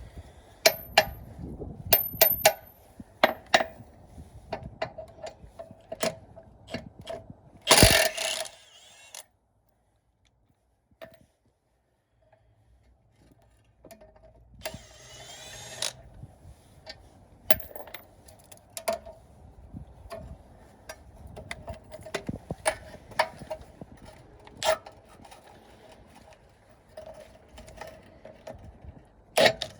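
Hand tools clicking and knocking on metal parts of a car's rear axle beam. About eight seconds in there is a loud noisy burst lasting about a second, and there is another shorter noisy burst a little later, with a few seconds of near silence between them.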